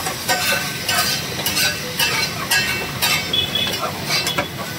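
A metal masher mashing and stirring pav bhaji on a large flat tawa griddle, clinking and scraping against the griddle about twice a second over a steady sizzle of the cooking bhaji.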